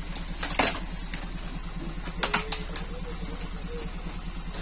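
Short sharp clicks and scratches of a small tool being worked against a cardboard box, in a few quick clusters, over a steady low hum.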